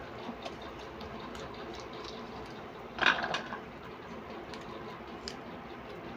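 Fresh green pea pods being shelled by hand, with the peas dropping into an enamel bowl in faint ticks, and a louder short crackle about three seconds in.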